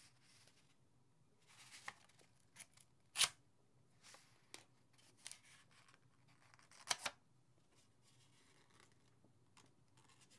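Sheet of paper being sliced with a miniature pearl-oyster-shell kitchen knife: a few short, crisp cutting and paper-rustling sounds, the loudest about three seconds in and another about seven seconds in.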